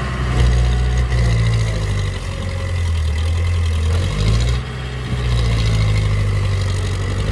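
Powertrac farm tractor's diesel engine running under load while it works a rear-mounted back loader into a sand heap, its note sagging about two seconds in and dipping again briefly around four and a half seconds before picking back up.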